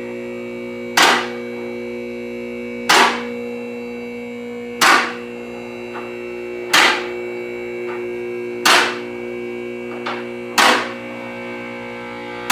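Car hoist running: an electric motor hums steadily while a sharp metallic clack comes about every two seconds, six times, each ringing briefly, as the lift's safety locks catch.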